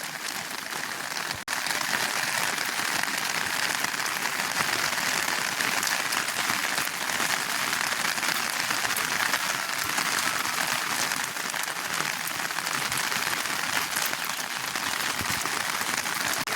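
Heavy rain falling in a steady, dense patter, briefly dipping about a second and a half in and slightly louder after.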